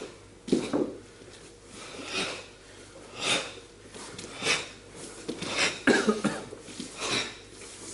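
Two karateka performing a kata together: a series of short, sharp bursts, about one a second and bunching up near the end, from cotton gi snapping and forceful exhalations on each technique.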